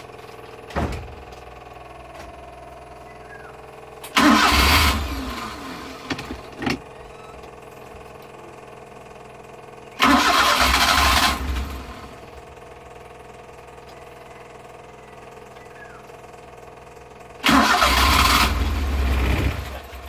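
Cold Suzuki F6A three-cylinder engine being cranked on the starter in three tries of about two seconds each, roughly six seconds apart. It does not keep running after any of them: a hard start from cold.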